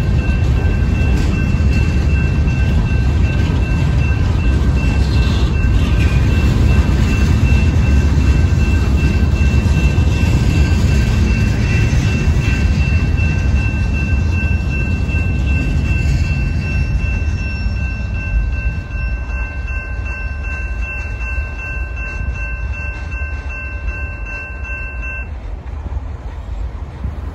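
Freight train of boxcars rolling past a grade crossing: a loud, heavy low rumble that fades once the last car has gone by, past the middle. The crossing's warning bell sounds over it as steady high ringing tones and cuts off suddenly near the end.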